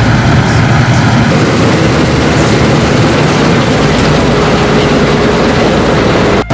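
Claas Tucano 430 Montana combine harvester running, a loud steady mechanical noise from its engine and threshing machinery. The sound cuts out sharply for a moment near the end.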